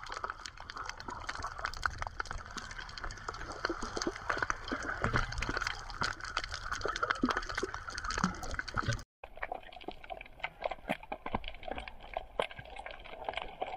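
Underwater sound picked up by a submerged camera: dense, irregular crackling clicks over a steady low rumble of moving water. The sound drops out completely for a split second about nine seconds in.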